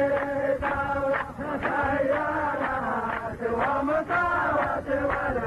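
Male chanting of Arabic sung tribal poetry (mawwal), long held notes that bend in pitch.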